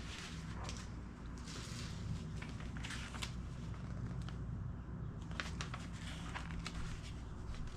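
Scattered light rustles and clicks of someone handling packing material and paper while unpacking a flat-packed table, over a steady low hum.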